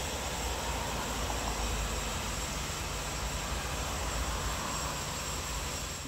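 Steady outdoor background noise: a low rumble with an even hiss over it and a faint, steady high whine.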